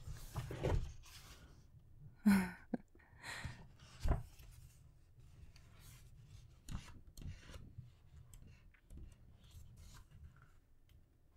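Pages of a hardcover book being turned one after another: paper rustling and sliding, with several sharper flicks as pages fall over.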